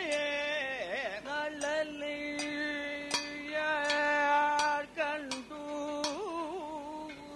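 Male voice singing Kathakali music in raga Bhairavi, with long held notes and ornamented slides between them. Sharp metallic percussion strikes every second or so keep time.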